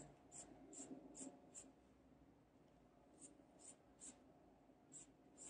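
Faint swishes of a paintbrush stroking paint onto fabric, in short runs of about two to three strokes a second.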